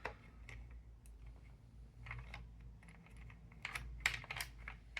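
Small, irregular clicks and knocks of puzzle box parts being turned and handled, with a cluster of clicks late on.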